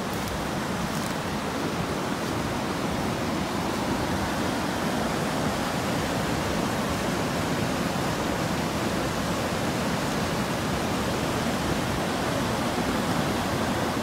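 River rapids pouring over rock ledges: a steady rush of whitewater.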